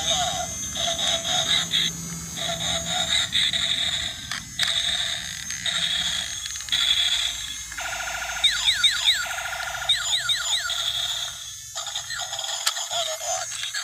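Battery-powered toy Optimus Prime truck switched on, playing electronic sound effects through its small speaker. There is a run of beeping and warbling tones with short gaps, then a buzzy stretch with quick rising chirps repeated several times.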